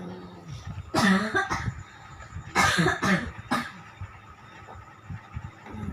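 Loud snoring from a sleeper: a harsh, rattling snore about a second in, then a second burst of two or three snores from about two and a half to three and a half seconds in.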